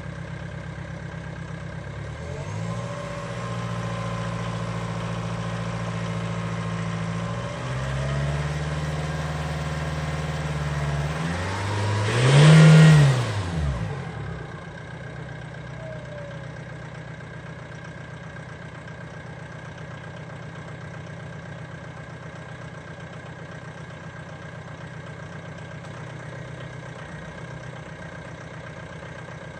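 Jaguar X-Type's four-cylinder diesel engine running cold: it is held at raised revs twice, then blipped sharply about twelve seconds in, which is the loudest moment, before dropping back to a steady idle.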